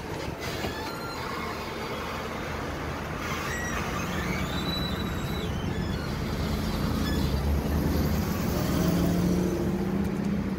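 A large road vehicle's engine running, a low steady hum that grows louder over the last few seconds, over general traffic noise.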